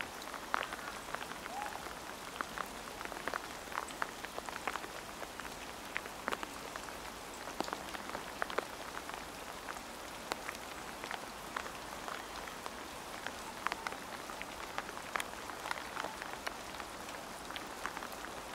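Rain pattering steadily: irregular sharp drops over a soft, constant hiss.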